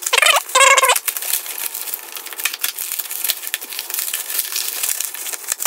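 Black plastic wrapping crinkling and crackling as it is handled and cut open with a utility knife. A short pitched squeak sounds in the first second.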